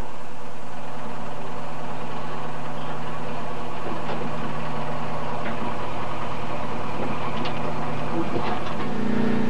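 Engine of a tracked self-propelled howitzer running steadily at low speed as the vehicle creeps along, with a few faint clicks over the even engine note.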